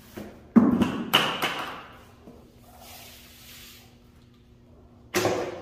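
Dry 32-grit sand being poured from one plastic bucket into another, a rush of grains that starts suddenly about half a second in and tails off over a second or so. A second pour or rush starts near the end.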